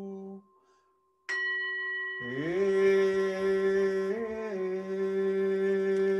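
A low hum stops about half a second in. After a short silence a handheld brass singing bowl is struck once with a mallet and keeps ringing with steady tones. About a second later a man's voice comes in with a low hum that slides up in pitch and is held, wavering briefly near the middle.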